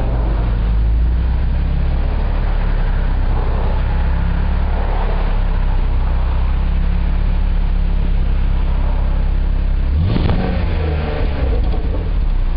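2003 BMW 325i's inline-six engine idling steadily through its twin-tip exhaust, with one quick rev about ten seconds in.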